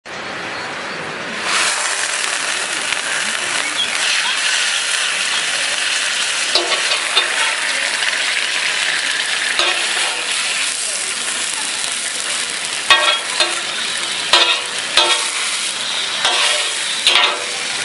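Food frying in hot oil with a steady sizzle that swells about one and a half seconds in. In the second half there are repeated short knocks and scrapes, like a utensil working the pan.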